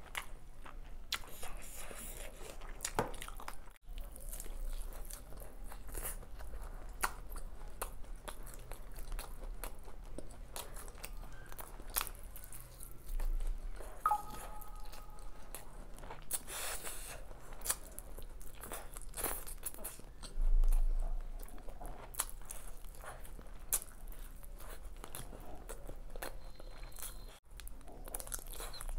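Close-miked eating sounds of a person chewing chicken biryani eaten by hand: wet chewing and biting into chicken, with many short sharp clicks. A dull low thump comes about two-thirds of the way through.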